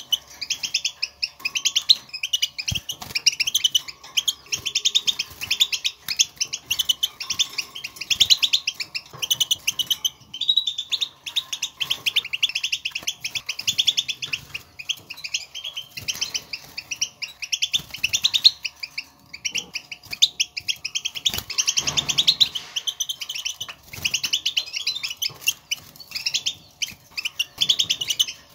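European goldfinches giving their fast, dense twittering of short call notes, the chatter wild goldfinches use to call to one another. The twittering runs almost without a break, easing briefly about ten seconds in.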